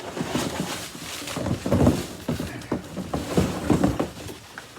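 Cardboard box and packaging being handled during unpacking: irregular rustling and scraping with sharp knocks as parts are taken out.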